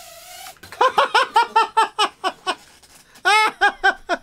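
Whine of tiny nano quadcopter motors cutting off about half a second in, then a man laughing hard in rapid bursts.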